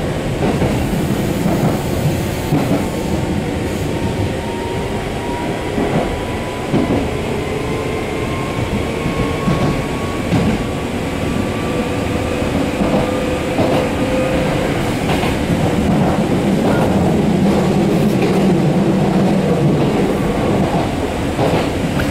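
Ex-Hankyu electric train running, heard from inside the car: traction motors whine with a slowly rising pitch over the wheel rumble and clicks of rail joints.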